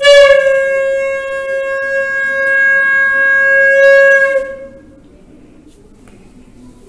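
Pink plastic toy horn blown in one long, loud note of steady pitch, held for about four and a half seconds before it stops.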